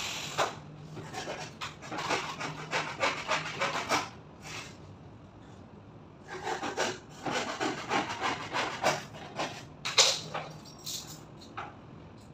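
Quick, repeated rubbing strokes of a hand tool working a wood-plastic composite (WPC) slat panel, in two bouts with a short pause between and a sharp knock near the end of the second. A power tool is winding down at the very start.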